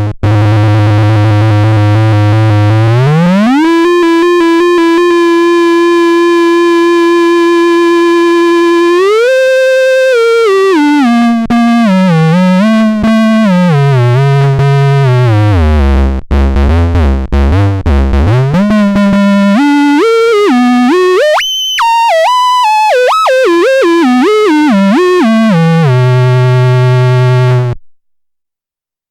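COSMOTON IDS2 electronic tone generator playing a single buzzy tone rich in overtones. It glides up into a long held note, then steps and wavers between pitches, swoops high briefly, and cuts off suddenly near the end.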